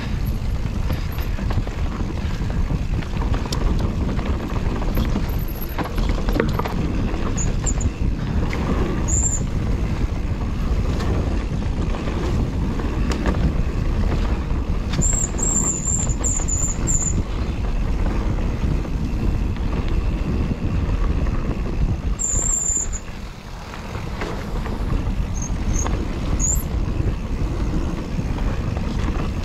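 Mountain bike riding on a dirt singletrack trail: steady rumble of tyres and bike over the ground mixed with wind on the microphone. Short high-pitched squeaks come several times, in a quick cluster about halfway through.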